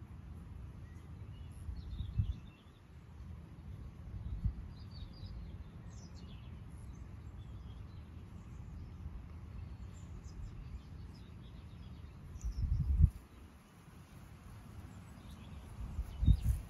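Outdoor ambience: a steady low rumble with four short, louder low bumps, and small birds chirping faintly now and then.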